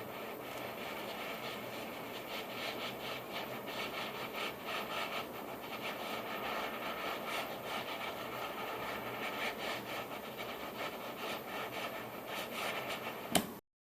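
Butane gas soldering iron running as a torch: a steady hiss of the gas flame with a fluttering, scratchy texture. It cuts off suddenly near the end.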